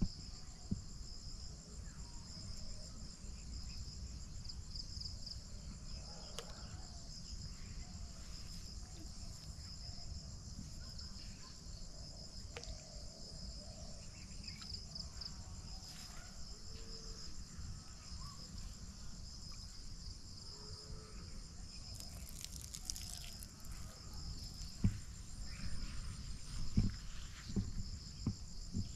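A steady insect chorus trilling at two high pitches, over a low rumble, with a few short knocks near the end.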